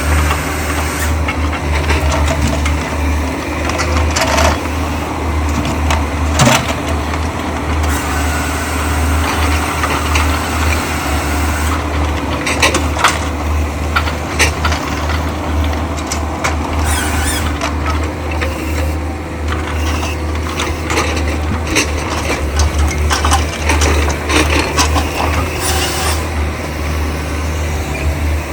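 Diesel engine of logging machinery running steadily under load, with irregular knocks and clatters of logs and metal being handled.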